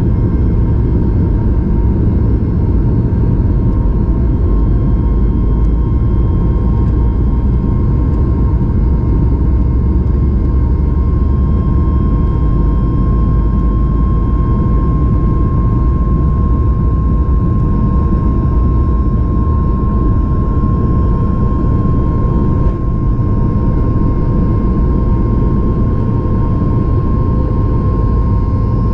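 Cabin noise inside a Boeing 737 MAX 8 with its CFM LEAP-1B jet engines running: a steady, loud low rumble of engine and airflow with a constant mid-pitched whine over it, holding even throughout.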